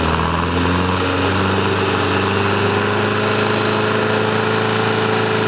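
Engine of a lifted off-road 4x4 truck running at steady revs, its pitch creeping up slightly partway through.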